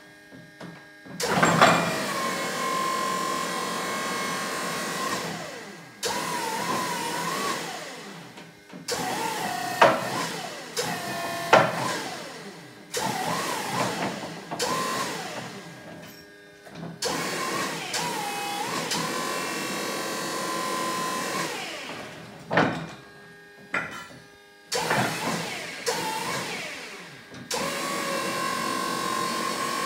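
Linde E16S electric forklift's hydraulic pump motor running in spells of a few seconds as the mast is raised, lowered and tilted. It switches on and off abruptly, with a whine that sometimes holds steady and sometimes wavers in pitch, and there are a few sharp clicks between the spells.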